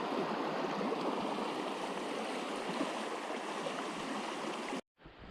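River water rushing over rocks, a steady even rush. It cuts off abruptly near the end, giving way to a much quieter outdoor background.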